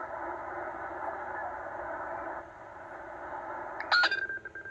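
Tecsun H-501X shortwave receiver in upper-sideband mode playing band noise as it is tuned across empty frequencies. About four seconds in, a click is followed by a steady whistle: the beat tone of a signal's carrier as the receiver lands on a station.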